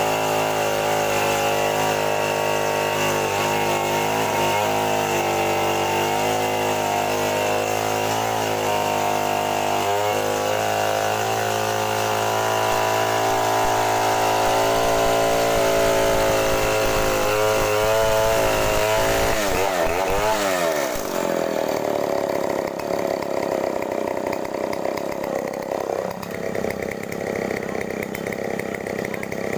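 Two-stroke petrol chainsaw running at full throttle, ripping lengthwise through a mahogany plank, its pitch wavering slightly under load. About nineteen seconds in, the throttle is released and the engine winds down to a low idle.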